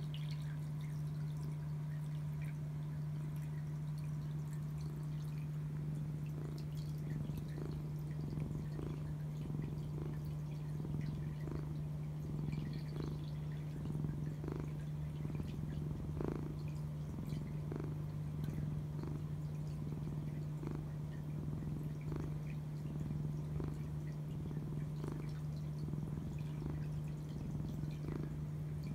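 White long-haired cat purring close to the microphone, pulsing roughly once a second with its breathing, over a steady low hum. A dozing cat purring contentedly as it is fussed over.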